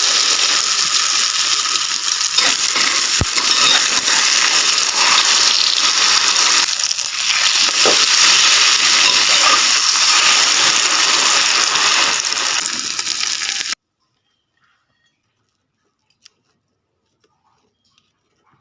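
Eggs frying in hot oil, a loud steady sizzle with scattered crackles and pops. It cuts off abruptly about fourteen seconds in, leaving near silence with a few faint clicks.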